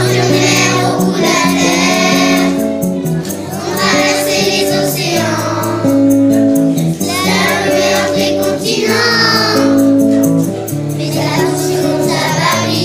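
Children's choir singing a song in unison with acoustic guitar and band accompaniment, the voices holding long notes over a steady bass line.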